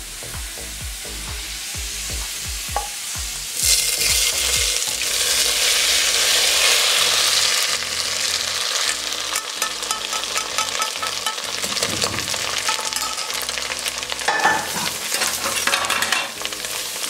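Hot desi ghee with golden-fried garlic (a tarka) poured into cooked sarson ka saag, sizzling. A sudden loud hiss starts about three and a half seconds in and settles into steady crackling.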